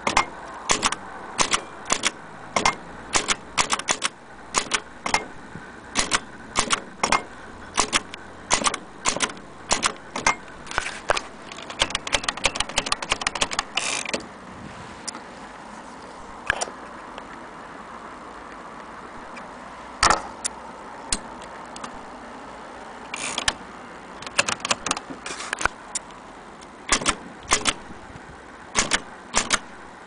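Vintage Bar-Let portable typewriter being typed on one key at a time, each typebar striking the platen with a sharp clack. There is a quick flurry of strikes about eleven to fourteen seconds in, a mid-stretch with only a few strikes, and steady keystrokes again near the end.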